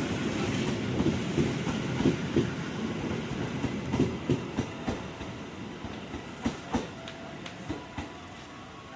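Passenger train coaches pulling away, their wheels clacking over the rail joints in quick, irregular knocks over a steady rumble. The sound fades as the train recedes.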